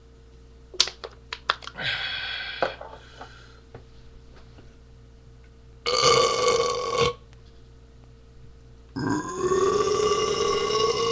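A man belching loudly twice after chugging a can of beer: a belch of about a second, then a longer one of about two seconds near the end. A few sharp clicks and a short noise come about a second in.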